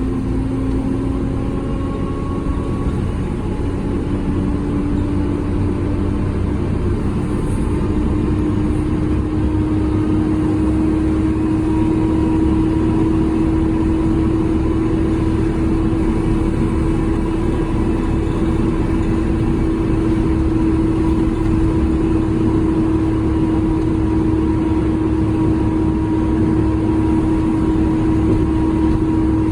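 Volvo B7TL double-decker bus heard from on board, its Volvo D7C six-cylinder diesel and drivetrain running under way, with a strong steady whine that slowly rises in pitch as the bus gains speed.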